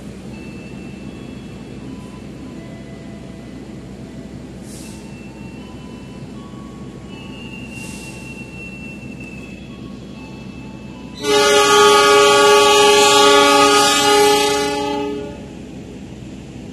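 Passenger train rolling slowly past a station platform with a steady low rumble and a few faint squeals and short hisses. About eleven seconds in, a train horn sounds one long blast of about four seconds, much louder than the rolling train.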